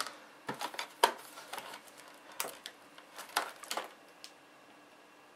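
Sharp plastic clicks and scrapes as a screwdriver pries at a laptop's plastic case and bezel clips, about a dozen irregular clicks that stop about four seconds in.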